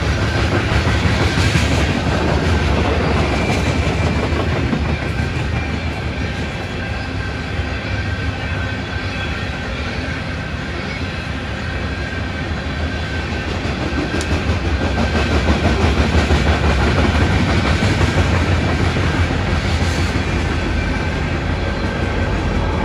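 Coal train hopper cars rolling past, steel wheels clicking over rail joints over a steady rumble with a faint high whine. The low rumble swells in the second half as a BNSF SD70ACe locomotive in the train draws near.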